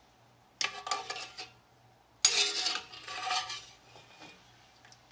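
Metal clanking on a big cast iron dutch oven: two bouts of clattering strikes with a short ring, the second, louder one beginning suddenly about two seconds in.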